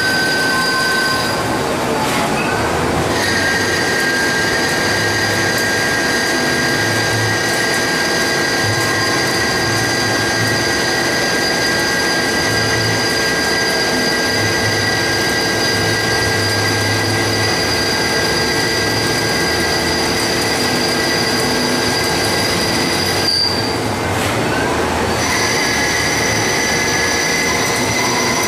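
Haas ST30 CNC lathe cutting a metal cylinder: a steady high-pitched squealing whine from the cut and spindle over a dense hiss. The tones drop out briefly and come back at a shifted pitch twice, about two to three seconds in and again around twenty-three to twenty-five seconds.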